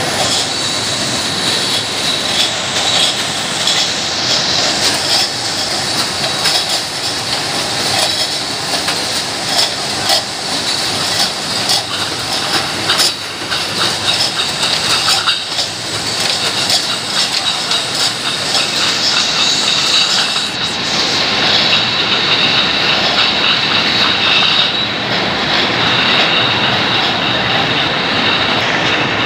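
Tin cans clattering and rattling against each other as they ride along the chain conveyors of a running canning line, with a continuous machine din and a steady high whine.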